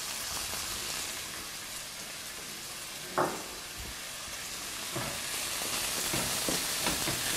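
Rice and onions sizzling in oil in a granite-coated pan. A wooden spoon starts stirring and scraping the pan about five seconds in. There is a single knock about three seconds in.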